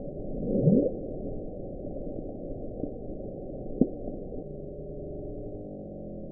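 The Bloop, a 1997 underwater hydrophone recording of an unexplained ocean sound, played back. Under steady muffled noise, a short sweep rises in pitch just under a second in, and a sharp click comes about four seconds in.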